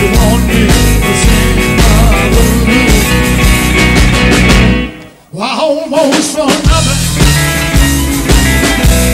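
Live blues-rock band playing with electric guitars, bass, keyboards and drums. About five seconds in the band stops dead, a short lone electric-guitar phrase with sliding notes fills the gap, and the full band comes back in about a second and a half later.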